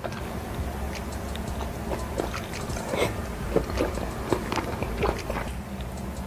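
Close-miked eating sounds: a person biting and chewing food, with many irregular small clicks and crackles.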